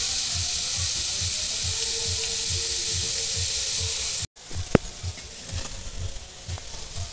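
Chana dal deep-frying in hot oil in an aluminium kadai, a steady loud sizzle at the foamy early stage of frying, before the dal floats up. About four seconds in the sound cuts. After that the sizzle is quieter, with a few sharp clicks of the slotted metal spoon against the pan.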